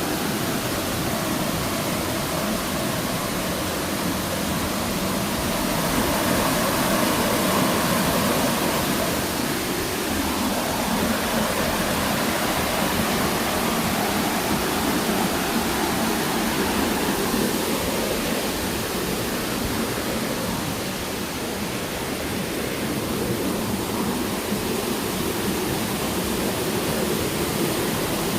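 Rushing water: a steady, dense rush spread across all pitches, swelling slightly a few seconds in.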